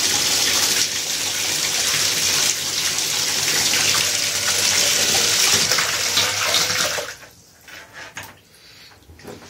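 Submerged electric bilge pump running and working, churning out a steady rush of water with a faint low motor hum. The rush cuts off suddenly about seven seconds in, leaving faint splashes and drips.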